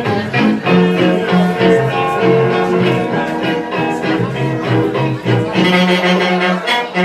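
Latin dance music with brass horns over a steady percussion beat, played loud.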